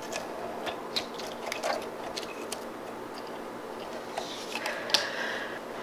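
Sticky slime being pressed and stretched as a blown bubble of clear blue putty, giving scattered soft clicks and small crackles over a steady faint hiss.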